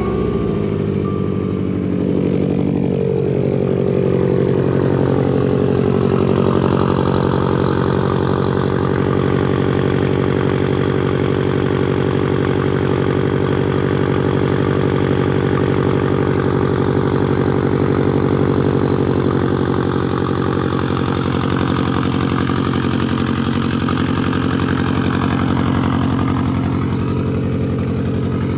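Subaru WRX STI's turbocharged flat-four boxer engine idling steadily just after a cold start, warming up.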